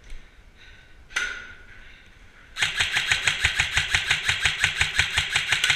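Airsoft electric gun (AEG) firing a sustained full-auto burst from about two and a half seconds in: a rapid, even string of shots at roughly eight to ten a second, with the motor and gearbox cycling. A single sharp sound comes about a second in.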